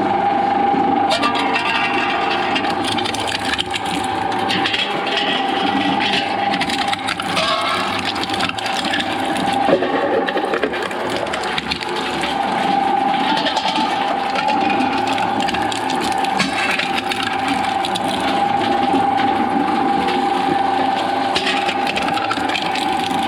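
Shredder machine running, its blades crunching and cracking through material in a dense, continuous grind over a steady whine. The whine fades for a couple of seconds about halfway through, then comes back.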